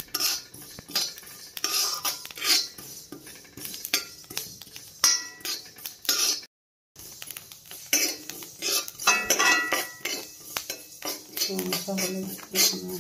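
A metal spoon scraping and clinking against the bottom of an aluminium kadai as panch phoron seeds are stirred while dry-roasting, with the seeds rattling over the bare metal. The sound cuts out briefly about halfway through.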